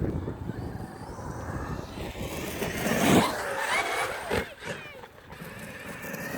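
Electric RC monster truck being driven, its motor whining up and down in pitch, with a sharp knock about four seconds in.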